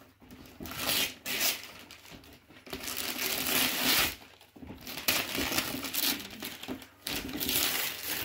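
Wrapping paper being torn and crumpled as a present is unwrapped, in several irregular rustling bursts.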